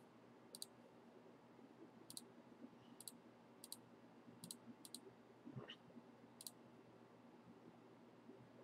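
Faint, sharp clicks of a computer mouse, about eight of them at irregular intervals, some in quick pairs, over near-silent room tone.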